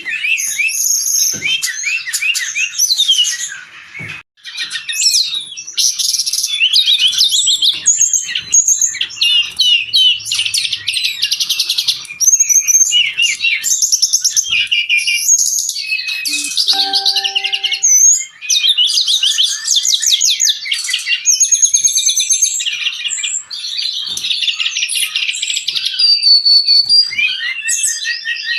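Brown-chested jungle flycatcher singing non-stop: a long, fast run of high twittering and chattering notes, with only brief pauses about four seconds in and again near eighteen seconds.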